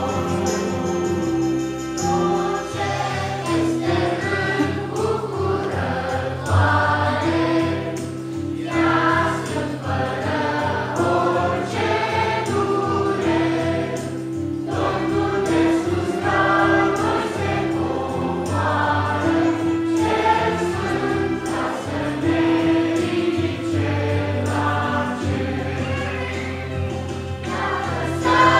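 A choir singing, with long held low notes sounding beneath the voices.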